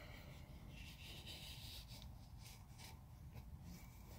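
Near silence with faint light rubbing and scraping: a piston ring being pulled out of the cylinder bore and handled by hand.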